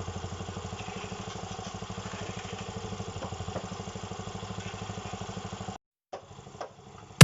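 Cement mixer's small engine running steadily with a fast, even pulse; it cuts off abruptly near the end.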